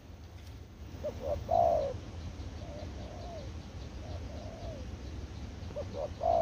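Spotted dove cooing: two short notes and a long loud coo, then several softer drawn-out coos, with the loud phrase coming again near the end.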